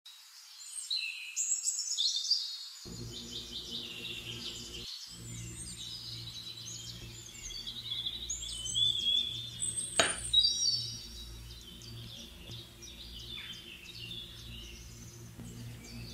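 Birds chirping and singing, many short overlapping calls, over a steady low hum that starts about three seconds in; a single sharp click about ten seconds in.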